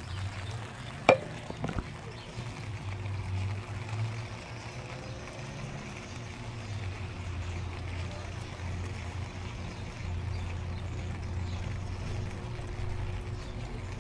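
Outdoor street ambience during a walk: a steady low rumble throughout, with a sharp click about a second in and a fainter one just after.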